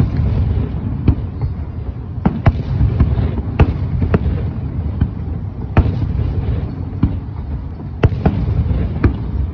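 Aerial fireworks shells bursting: a fast, irregular series of about a dozen sharp bangs over a steady low rumble.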